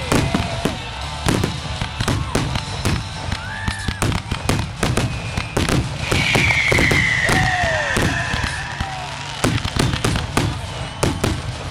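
Fireworks grand finale: many shells bursting in quick, overlapping succession. Gliding whistle-like tones sound over the bangs, the longest a high, slowly falling one around the middle.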